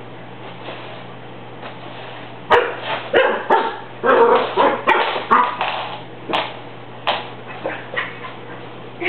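Cocker Spaniel puppy barking at a broom in a rapid string of short, sharp barks and yips. They start about two and a half seconds in and thin out near the end.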